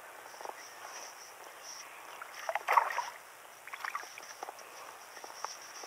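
A hooked bass thrashing and splashing at the water surface while it is played in on the rod, loudest about halfway through, with smaller splashes after. A steady, pulsing high insect buzz runs underneath.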